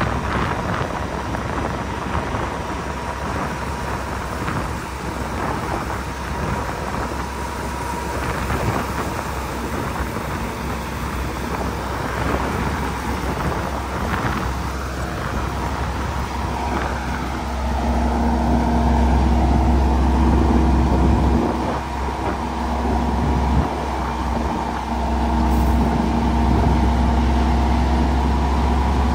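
Semi truck's diesel engine running while its end-dump trailer is raised and the gravel load slides out, a steady rumble mixed with the rushing noise of the gravel. About 17 s in the engine note rises and holds steady and louder, with a steady whine added.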